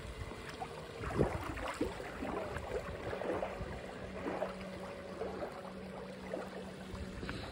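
Motor hum of a small unmanned survey catamaran running across a lake, with a steady higher tone throughout and a lower steady tone joining about two seconds in. Irregular splashing water noise comes and goes in the first half.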